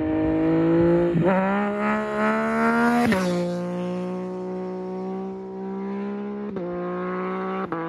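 2022 Yamaha MT-09 SP's three-cylinder engine through a Spark exhaust with no dB killer, accelerating hard up through the gears. The revs climb, drop sharply at a gear change about a second in, climb again and drop at another change about three seconds in. The engine then holds a steady note as the bike pulls away, with two brief cracks near the end.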